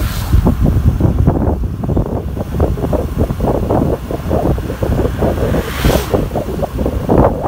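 Wind buffeting the microphone of a camera riding on a moving scooter: a loud, constant fluttering rumble, with brief hissing gusts near the start and about six seconds in.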